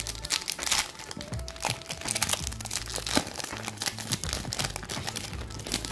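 Foil trading-card booster-pack wrapper being torn open and crinkled by hand, in a dense run of irregular crackles, over a steady background music bed.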